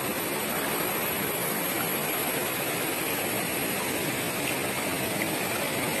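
Steady rush of flowing river water and a waterfall, an even, unbroken noise.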